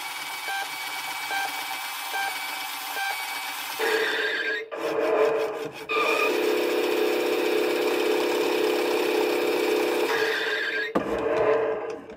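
Road Rippers Top Tune Hummer HX toy truck playing distorted electronic sound clips through its small built-in speaker as its roof buttons are pressed. The sound changes several times, with a short repeating beep early on and a steadier droning stretch in the middle, and cuts off at the end.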